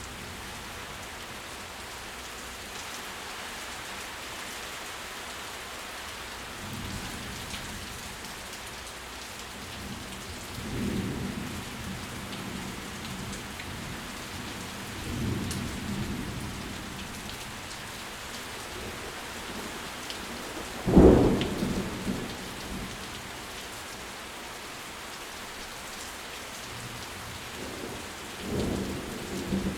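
Steady rain falling, with several low rolls of thunder swelling and fading and one sharp, loud thunderclap about two-thirds of the way through.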